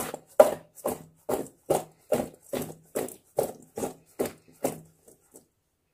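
Spice-coated radish pieces tossed in a stainless steel bowl as it is shaken to mix them: a steady rhythm of short strokes, about two and a half a second, that fades and stops about five seconds in.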